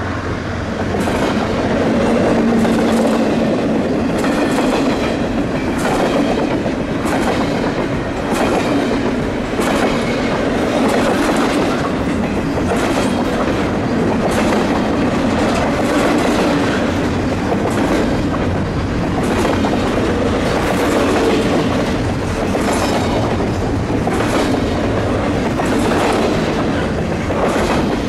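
Double-stack freight train rolling past, loud and steady, its wheels clacking on the rails in an irregular run of clicks.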